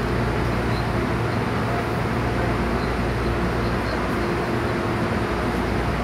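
Inside the carriage of an MTR Tung Chung line A-train, a steady electric-train hum: even running noise with a few fixed low tones that hold their pitch, from the train's electrical equipment and air conditioning.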